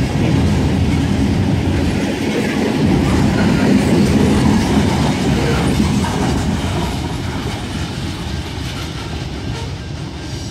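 Freight cars rolling past close by with a steady rumble and wheels clacking on the rails. The sound fades over the last few seconds as the end of the train passes and pulls away.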